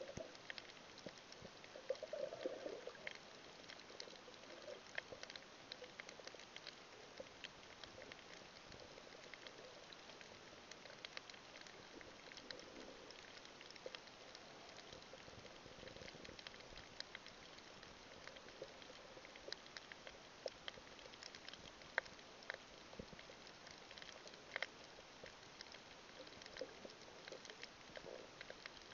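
Faint underwater ambience over a coral reef: a muffled hiss peppered with scattered sharp crackling clicks, with a few soft low gurgles near the start and end.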